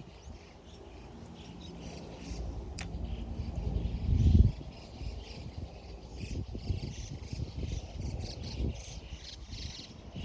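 Insects chirping outdoors over low rumbling noise on the microphone, which swells to a loud peak about four seconds in.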